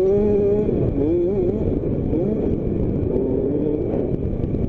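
Motocross bike engine running on the track, its revs rising and falling as the throttle is worked.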